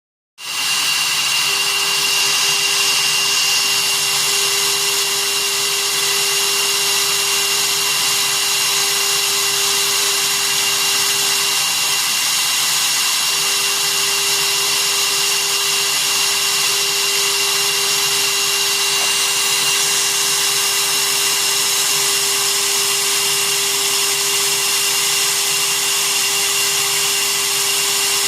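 Small CNC machine's spindle motor running steadily with a constant high whine and hiss, milling a printed circuit board.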